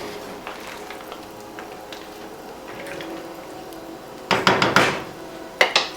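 Kitchen cookware clattering: a loud scraping clatter lasting under a second about four seconds in, then a couple of sharp knocks near the end, over a faint steady background.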